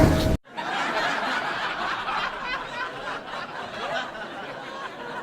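A loud sound cuts off abruptly about half a second in. Then a crowd of people chatter and laugh, with no single voice standing out.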